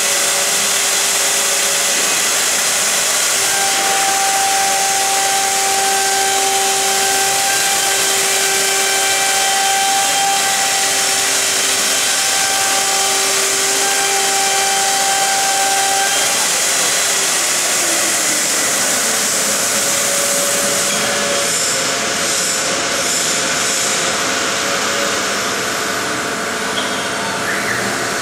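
CNC router spindle and bit routing grooves into a fibreboard panel: a steady, loud hiss of the high-speed spindle and cutting. A steady tone sits over the hiss from about four seconds in and drops away a little past the middle.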